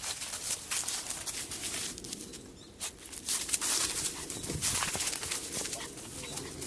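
Footsteps on a hiking trail: an uneven run of short scuffs and taps that pauses briefly about two seconds in.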